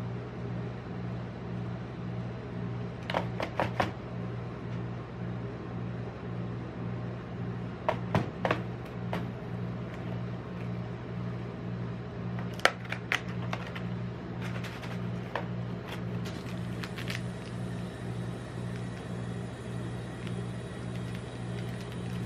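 Steady low hum of a rolled-ice-cream machine's cold-plate refrigeration unit running. Over it come several short clusters of crisp crackling clicks from a cardboard snack box being handled and opened.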